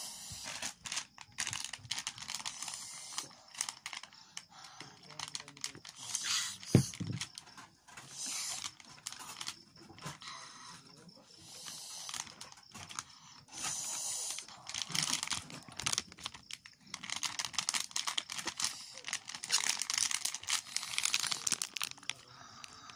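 Plastic snack bag crinkling and rustling as it is handled, in repeated bursts, with one loud thump about seven seconds in.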